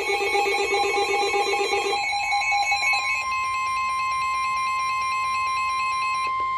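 Electronic emergency alert tones: a rapid warbling signal for about two seconds, then a steady single high tone held for about four and a half seconds that cuts off sharply. This is the warning alarm tone that precedes a spoken severe thunderstorm warning.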